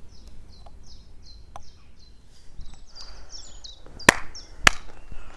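A small bird chirping over and over, short high notes about three a second, then two sharp knocks about half a second apart near the end.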